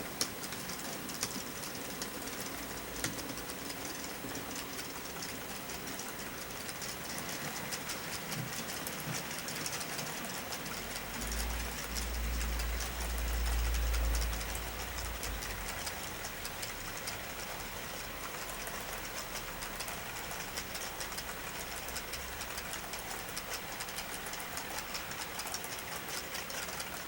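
Model train without an onboard sound system running down the track: the motor whirs and the small wheels click rapidly over the rail joints. A low rumble swells about eleven seconds in and fades out about four seconds later.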